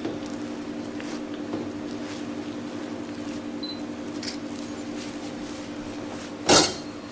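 Cling film being rolled by hand around a salmon filling on a steel bench: faint rustles and small taps over a steady low hum, with one short loud noise about six and a half seconds in.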